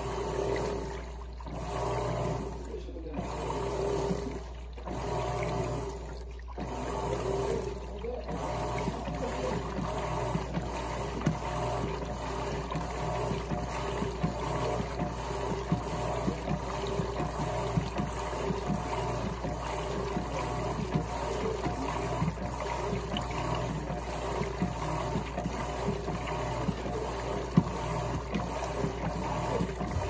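Electrolux LTC15 top-loading washing machine running with water in the drum: motor hum and sloshing water. For about the first eight seconds the sound comes and goes about every one and a half seconds, like agitation strokes. After that it turns into a steady churning.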